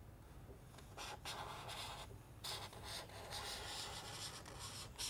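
Faint pen scratching across paper in uneven strokes, starting about a second in.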